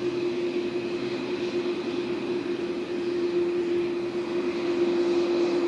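Boeing 787 Dreamliner's jet engines running at taxi idle: a steady whine with one constant tone and a fainter higher tone above it.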